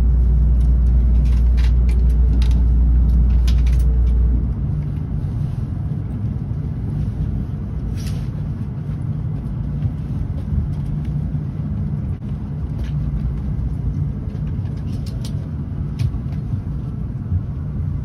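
Tokaido Shinkansen train heard from inside the car as it pulls slowly into the station: a steady low rumble, with a heavier deep hum that cuts off about four seconds in and a few faint clicks and knocks.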